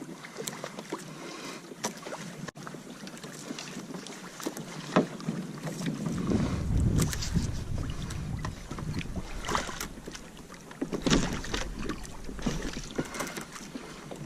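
Water sloshing and splashing around a kayak's hull, with scattered small knocks and gusts of wind buffeting the microphone, strongest about six seconds in and again about eleven seconds in.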